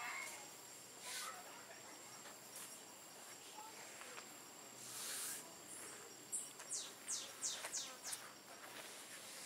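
Faint steady high-pitched insect trill in tropical canyon forest. In the second half comes a run of about seven quick falling whistles.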